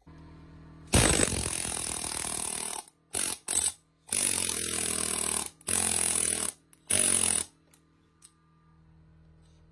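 Central Pneumatic pneumatic air hammer chiselling in six bursts of rapid hammering. The first and longest burst runs about two seconds, then come two quick blips, then three more runs of about half a second to a second and a half.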